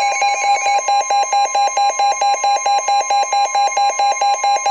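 Midland NOAA weather radios sounding a severe thunderstorm warning alert: rapid beeping, about seven beeps a second, over a steady high alarm tone.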